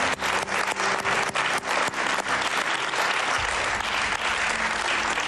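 Studio audience and contestants applauding. The clapping starts out together in a rhythm of about four claps a second, then breaks up into a steady wash of applause about two seconds in.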